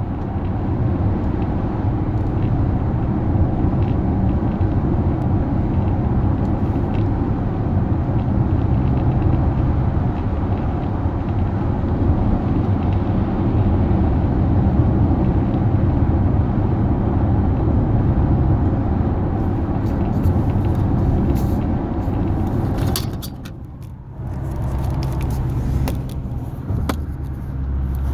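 Steady low rumble of a 2019 Acura RDX A-Spec on the move. From about two-thirds of the way in, scattered sharp crackling clicks join it: the weird crackling noise the owner is documenting. Near the end the rumble briefly dies down, then returns.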